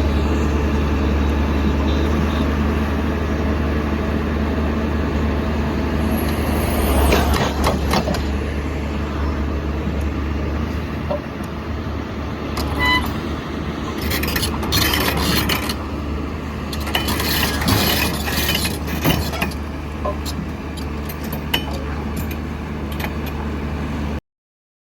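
Komatsu PC210 excavator's diesel engine running steadily, with bursts of metallic clanks and knocks several times partway through. The sound cuts off suddenly near the end.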